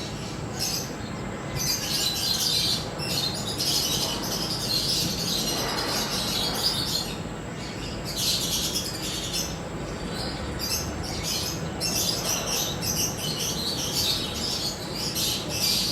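Small birds chirping in quick, irregular bursts throughout, over a steady low background noise.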